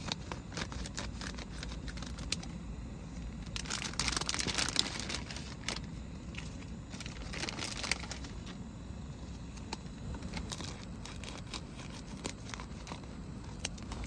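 Crinkling and rustling of packaging being handled and torn open, in many short crackles with a louder stretch about four seconds in, over a low steady rumble.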